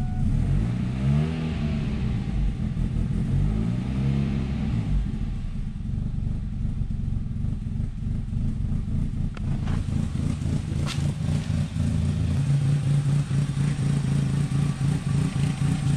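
Kia car engine running with maple syrup in its crankcase in place of engine oil, the engine speed rising and falling twice in the first few seconds, then settling into a steady run. It has built pressure and sounds like it is working.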